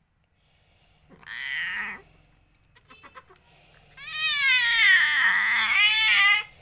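Mother cat in labour crying: a short cry about a second in, then a long, loud, wavering yowl from about four seconds in. These are the cries of a queen straining through her first delivery.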